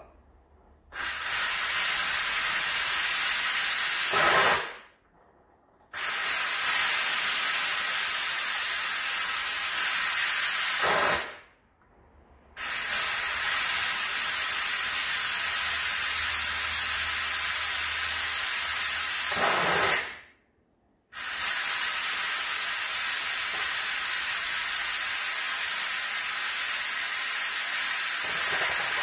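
Steam jetting with a loud, steady hiss from the pressure-release valve of a Philips electric pressure cooker switched from seal to vent, letting out the pressure after cooking. The hiss dies away three times and starts again abruptly each time.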